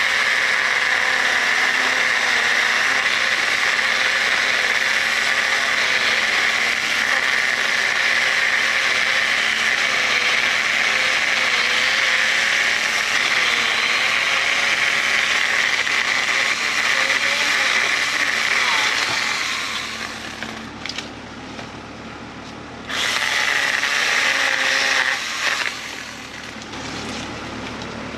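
Stihl GTA 26 battery-powered mini chainsaw running and cutting through a thick lilac branch, a steady high whine whose pitch wavers slightly as the chain works through the wood. It stops about twenty seconds in, runs again for a couple of seconds, and stops for good a few seconds before the end.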